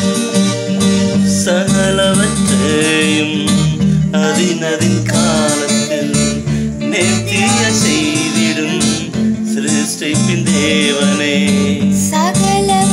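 Electronic keyboard playing a Tamil Christian devotional song over its own repeating bass and rhythm accompaniment, with voices singing a wavering melody above it.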